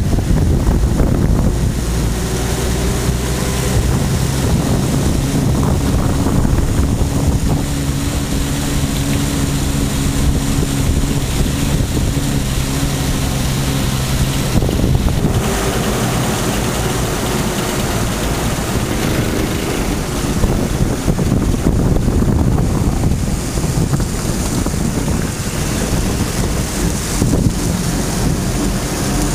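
GMC CCKW 6x6 army truck's engine running under way, heard from the cab, with its note shifting a few times as the speed changes. Wind noise on the microphone throughout.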